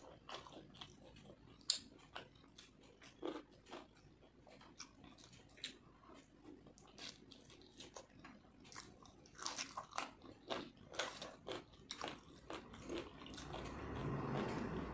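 Close-miked eating by hand: wet chewing, lip smacks and crunching as chicken curry is bitten off the bone with fried rice, a steady run of short sharp clicks. Near the end a longer, louder drawn-out sound swells up.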